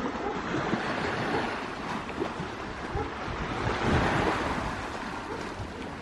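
Sea waves washing in on the shore, a steady rush of surf that swells to its loudest about two-thirds of the way through.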